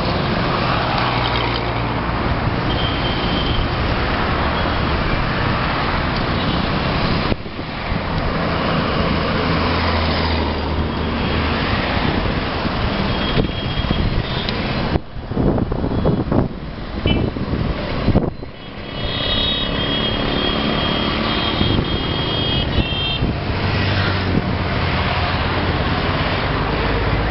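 Busy road traffic passing close by: tipper trucks, auto-rickshaws, motorcycles and cars, their engines running steadily, with a few short horn toots in the second half.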